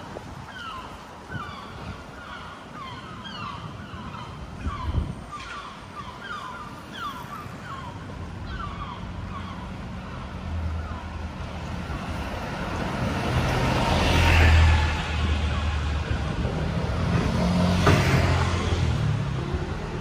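Road traffic: vehicles pass by, with two loud passes, one about two-thirds of the way through and one near the end. Over the first half, a bird gives a quick series of short, falling calls.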